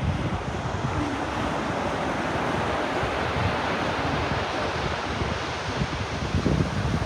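Ocean waves washing onto a beach, one wash swelling through the middle and then easing, with wind gusting on the microphone as a low rumble.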